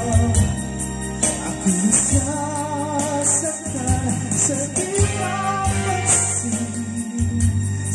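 Karaoke backing track played by a Platinum Major HD10 karaoke player, with a voice singing the melody over a steady beat.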